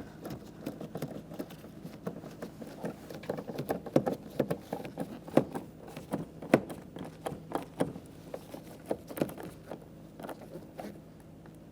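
A 7mm socket tool being worked by hand to drive the door panel's screw: a run of irregular light clicks and taps, quickening in places and thinning out near the end.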